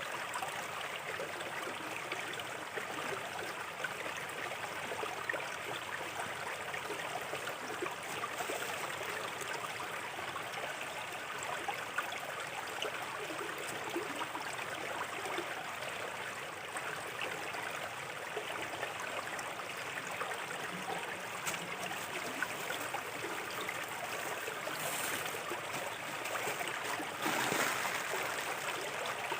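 Small river stream trickling and gurgling over stones in a steady babble, swelling briefly near the end.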